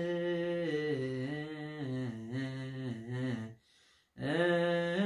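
A lone man's voice chanting an Orthodox Tewahedo hymn (mezmur) in Ge'ez, unaccompanied: long held notes drawn out with slow melodic turns. It breaks off for a breath about three and a half seconds in, then a new phrase begins on a sustained note.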